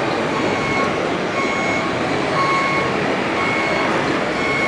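Vehicle reversing alarm beeping about once a second over a steady rushing vehicle noise.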